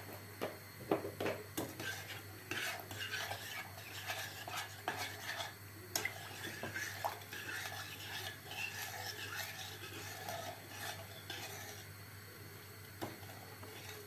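A metal spoon stirring milk in a stainless steel pot, clinking and scraping against the sides and bottom in quick, irregular strokes. The starch and sugar are being dissolved into the milk for a semolina pudding.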